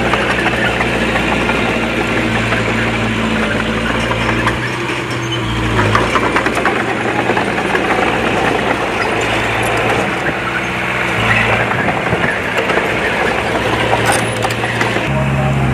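Diesel engine of a Komatsu D20P bulldozer running under load while it pushes fill, its engine note dropping and rising again a few times, over a steady mechanical clatter.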